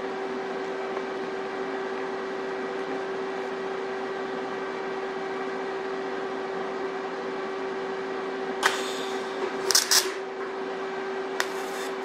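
TIG torch striking short arcs to tack-weld steel tubes: three brief bursts of crackling hiss starting about nine seconds in, over a steady hum.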